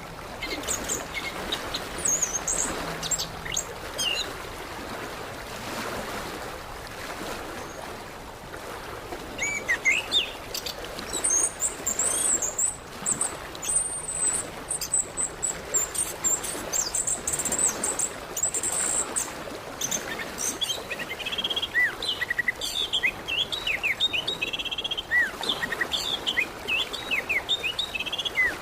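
Orange-headed thrush singing over a steady noisy background: high thin chirps through the middle, then a busy run of short, varied whistled phrases in the last third.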